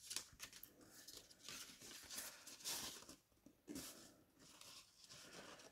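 Faint rustling and scraping of paper as hands press, slide and shift glued strips of cardstock into place, in short irregular bursts.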